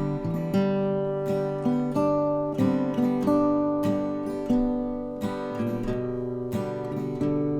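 Acoustic guitar strumming chords at a slow, even pace.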